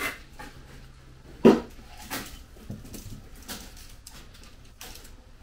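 A string of light knocks and clatters, the loudest about a second and a half in: a stainless steel brake line and hand tools tapping against the car's front suspension and frame while the line is worked into place.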